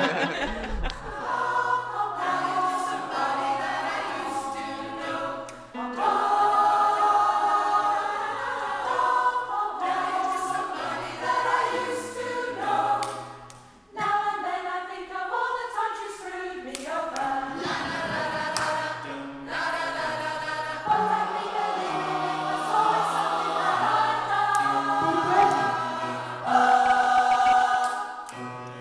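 A choir singing held notes in several-part harmony, in long phrases with a brief pause about 14 seconds in.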